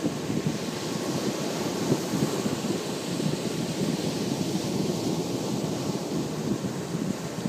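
Ocean surf breaking and washing up onto a sandy beach in a steady roar, with wind buffeting the microphone as a low fluttering rumble.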